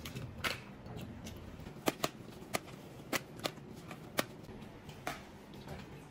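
Eating and tableware handling at a table: about eight irregular sharp clicks and taps, as light disposable bowls and utensils are handled during a meal.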